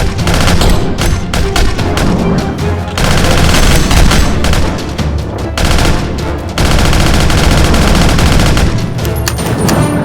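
Rapid bursts of gunfire sound effects, machine-gun style, over loud action background music with a heavy bass.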